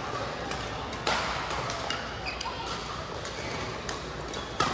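Badminton rackets striking a shuttlecock in a rally: a sharp smack about a second in and another near the end, with fainter hits from other courts and faint voices in the hall.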